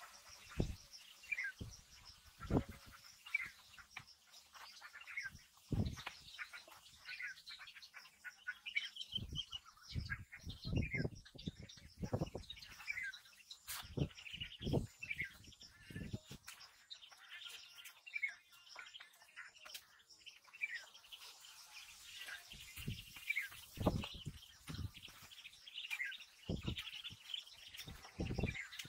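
Ducklings peeping: many short peeps, each falling in pitch, with scattered dull thumps among them.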